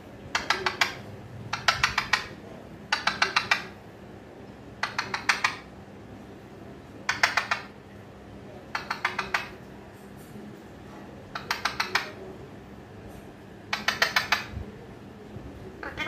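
Alexandrine parakeet clicking its beak in short, quick runs of five or six sharp clicks, each run lasting about half a second and coming every second or two.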